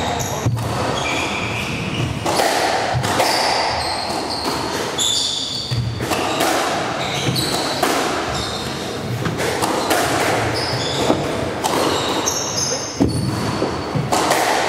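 Squash rally: the ball cracking off the rackets and the court walls again and again, with shoes squeaking on the wooden floor, all ringing in the enclosed court.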